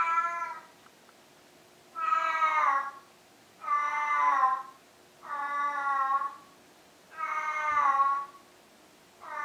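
Cat wailing: long, drawn-out meows about a second each, repeated over and over with short pauses between.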